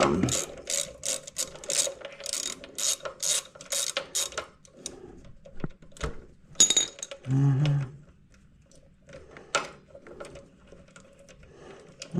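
Socket ratchet clicking in steady strokes, about three a second, as a brake caliper mounting bolt on a Kawasaki ZX-4RR's front fork is backed out. It stops after about four seconds, then a few sharper single clicks and knocks follow.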